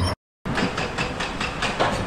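Excavators and dump trucks loading broken rock. A steady diesel engine hum breaks off in a brief gap of silence, then a rapid run of knocks and clatter, as of rock striking steel, sounds over the running engines.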